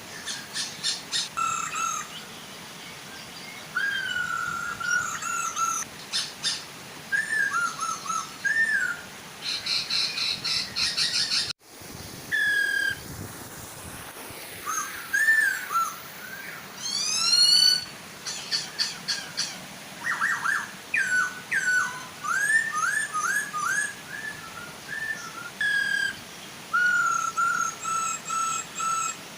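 Masked laughingthrushes (poksay hongkong), a male and a female, calling in a busy run of whistles, chirps and rapid repeated notes over the steady soft rush of a waterfall. The sound drops out for an instant a little before the middle.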